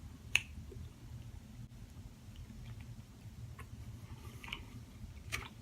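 Close-up chewing of a meat lovers breakfast burrito: faint, soft mouth clicks and smacks, with one sharper click about a third of a second in, over a low steady room hum.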